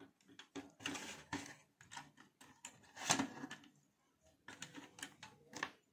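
Small clicks, taps and scrapes of a screwdriver and wire being worked at the screw terminal block of a switch-mode power supply, irregular throughout, with the loudest knock about three seconds in.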